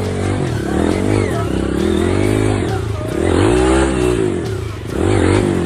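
Off-road vehicle engine revving up and down in about three swells, its pitch rising and falling.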